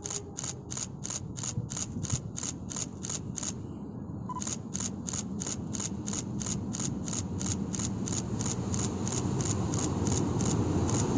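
Diesel locomotive hauling a freight train approaching, its engine rumble growing steadily louder. Over it runs a rapid regular ticking, about four ticks a second, with a brief break partway through.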